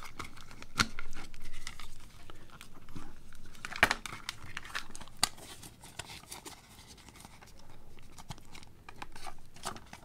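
Small clicks and scratches of a lock pick and tension wrench working the pins of a Master Lock 318DLH padlock, mixed with crinkling of its plastic-and-card blister packaging. A few sharper clicks stand out, the loudest about four seconds in.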